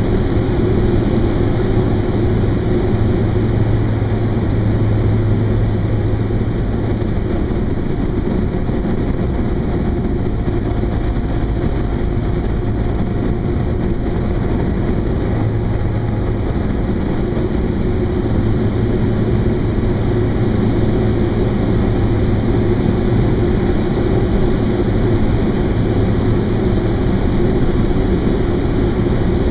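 Thrush crop-dusting airplane's engine and propeller running in a steady, loud drone, heard from inside the cockpit.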